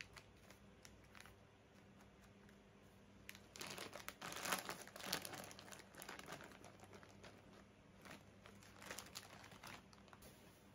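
Plastic snack bag of popcorn crinkling as it is handled, in dense bursts from about three and a half seconds in and again near the end. A few light rustles of a tea sachet's packaging come first.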